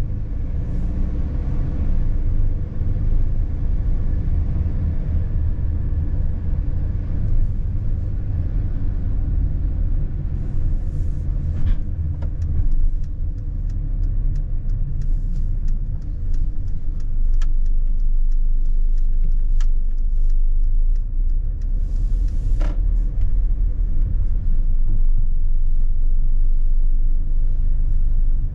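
Steady engine and road rumble inside a Mercedes-Benz Sprinter van's cab as it drives slowly through town. Scattered short ticks and rattles come through in the middle.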